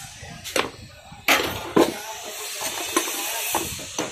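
Sharp metallic clicks and knocks, a few in the first two seconds, then lighter ticking and scraping, as a pressure cooker's whistle weight is handled and scraped with a metal tool to clear out caked grime.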